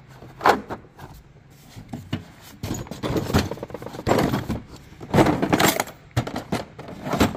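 Tools being handled and shifted around in a tool box: a series of irregular knocks and clatters, with no steady mechanical sound.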